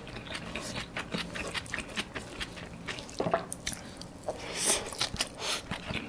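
Close-miked chewing and wet lip smacks of a man eating soft rice by hand: many small irregular mouth clicks.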